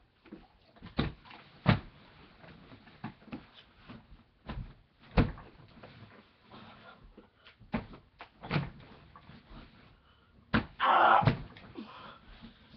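Scattered thumps and knocks from a person wrestling with a dog, with a short noisy burst near the end.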